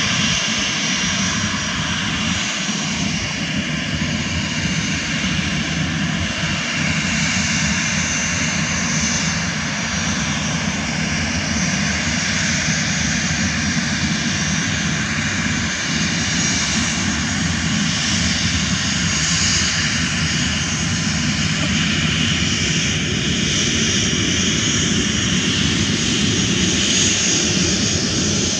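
CFM56 turbofan engines of a SilkAir Boeing 737-800 running steadily as the airliner rolls along the runway: a continuous jet rumble with a high whine on top.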